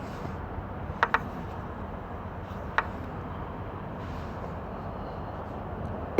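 Steady background rumble and hiss with sharp clicks: two in quick succession about a second in, and one more near the middle.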